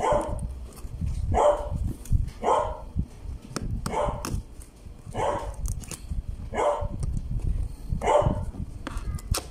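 A dog barking over and over, seven single barks spaced about a second and a half apart, with low rubbing and knocking underneath as a knife cuts the tape on a cardboard box.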